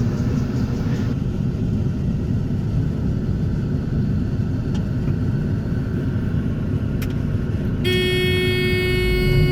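Heavy farm machinery engine running steadily with a deep rumble during corn harvesting. About eight seconds in, a steady horn-like tone starts and holds.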